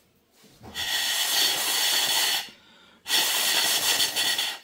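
Compressed air hissing through the ports of a motorcycle rear brake master cylinder in two long bursts, each about a second and a half, with a short gap between. The air blows leftover fluid out of the passages to clear them and check they are not clogged.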